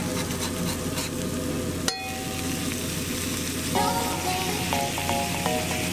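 Smashed beef burger patty sizzling steadily on a hot flat-top griddle, with one sharp metallic clink about two seconds in. Short musical notes come in over the sizzle just before four seconds.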